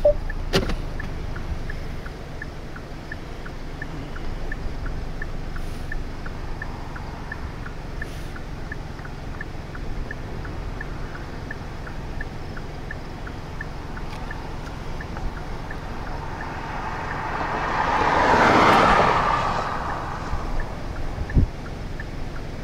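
Wind noise with a faint, regular ticking about twice a second. About eighteen seconds in, a vehicle passes on the road, its tyre and engine noise swelling and then fading.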